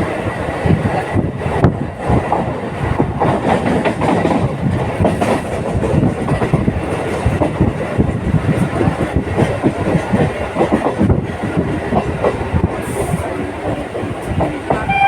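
Local passenger train running at speed: steady rumble of the coaches, with the clickety-clack of wheels over rail joints.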